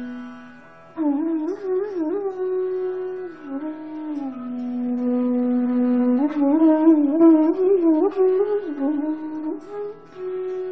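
Background music: a flute melody in Indian classical style, entering about a second in with sliding, ornamented notes and a long held note in the middle, over a faint steady drone.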